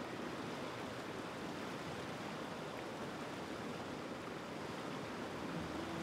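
Mountain stream rushing over rocks: a steady, even rush of running water.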